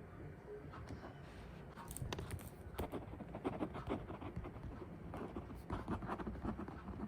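Rapid, irregular light taps and clicks of work at a desk, growing busier about two seconds in.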